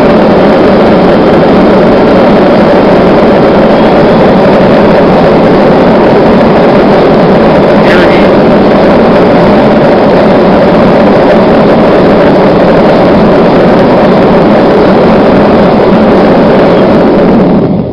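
Blower-fed propane gas forge burning hard, a loud steady rushing noise of forced air and flame. Near the end the blower is switched off and the noise drops away suddenly.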